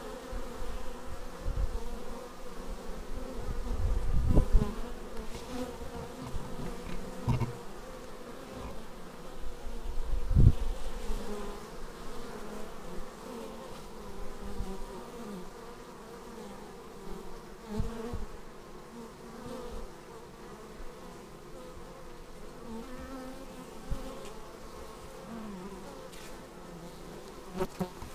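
Honeybees buzzing at a hive entrance: a steady drone from the crowd of bees, with individual bees' buzz rising and fading as they fly in close. A few low thumps break through, loudest about four and ten seconds in.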